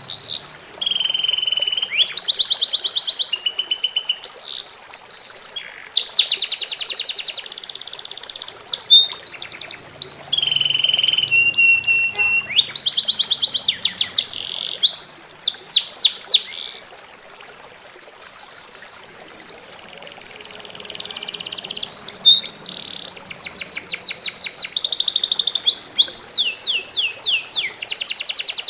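Songbird singing a loud, varied song of rapid trills, held whistled notes and quick downward sweeps, pausing briefly about two-thirds of the way through, over faint trickling water.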